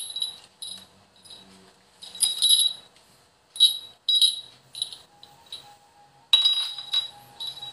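Bright jingling in short irregular bursts, a small object shaken close to the microphone, loudest about six seconds in. A faint steady tone joins about five seconds in.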